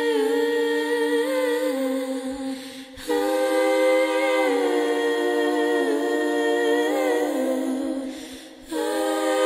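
Whine of a 5-inch FPV quadcopter's brushless motors and props, holding pitch and stepping up and down with the throttle. It falls in pitch and fades away twice, about two and a half seconds in and near the end, then snaps back loud as the throttle is punched again.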